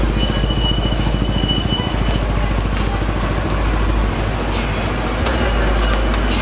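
A motor vehicle engine running close by: a loud, steady low rumble with a rapid even pulse, a thin high whine over it for the first couple of seconds.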